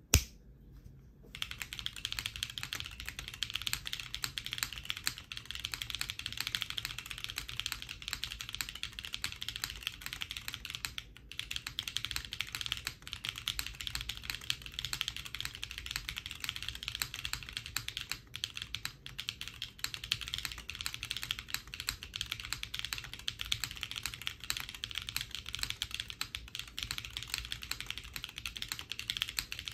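Steady, fast typing on a custom mechanical keyboard: hand-lubed and filmed BCP switches on a carbon fibre plate with GMK Nord keycaps and no foam. The typing begins about a second in and runs as a dense stream of keystrokes, with a couple of brief pauses.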